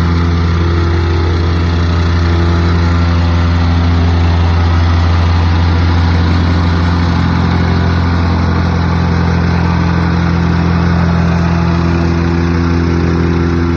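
An engine idling steadily: a constant low hum that shifts slightly in tone about seven seconds in.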